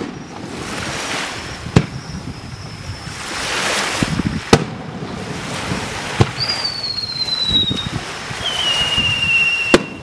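Aerial firework shells bursting with five sharp bangs, the loudest at the very start and near the end, with a hiss swelling between them. Two long whistles slide slowly downward in pitch in the second half.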